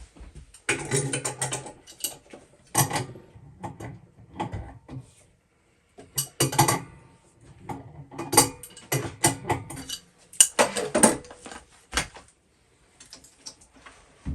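Metal tools and parts being handled: several short bouts of clicking, clinking and rattling with pauses in between.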